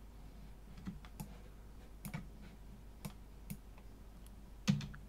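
Faint, scattered clicks of a computer mouse and keyboard, single clicks spaced about half a second to a second apart. Near the end there is one louder short knock.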